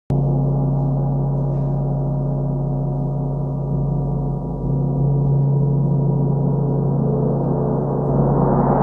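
A handmade 43-inch mandala gong played with a soft red felt mallet rings as a continuous deep wash of many overlapping steady tones, with no separate strikes heard. Near the end it swells louder and brighter as more high overtones come in.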